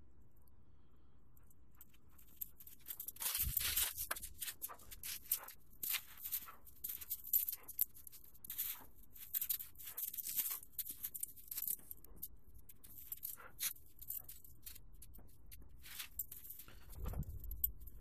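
Footsteps crunching in snow at a walking pace, about two steps a second, starting about two seconds in.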